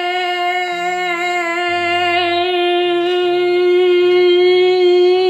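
One long sung note held at a steady pitch over a soft, changing bass line, dropping away in pitch right at the end.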